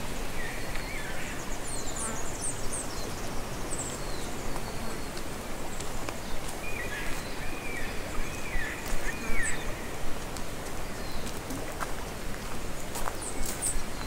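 Footsteps crunching steadily on a gravel track, with forest birds calling over them: a short warble at the start, a longer warbling phrase in the middle, and high chirps here and there.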